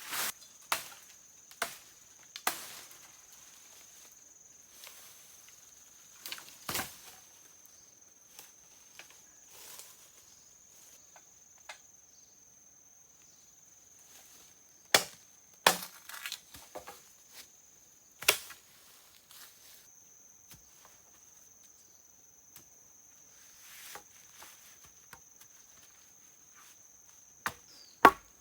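Scattered sharp chopping strikes on wood, a handful spread over the time, then steady chopping about two strokes a second near the end. A thin, steady, high insect drone runs underneath.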